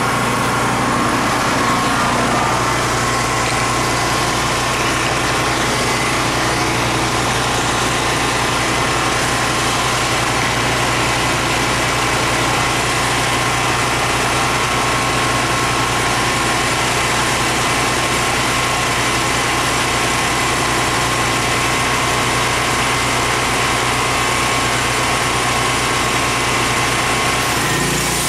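Portable gasoline generator running at a steady speed, an even engine hum.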